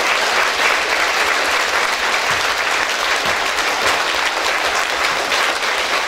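Applause from a large crowd: dense, steady clapping.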